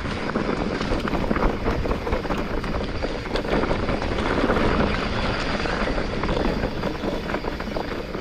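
Wind buffeting the microphone, with the rumble and rattle of mountain-bike tyres rolling over a rough track.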